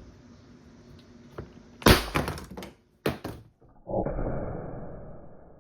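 Ramset powder-actuated nailer firing a .22 caliber gunpowder charge to drive a nail into a padlock: a loud sharp bang about two seconds in, a second sharp crack about a second later, then a decaying rumble.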